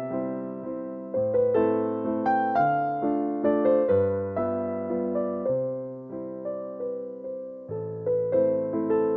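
Background music: a gentle piano melody of plucked-sounding notes, about two to three a second.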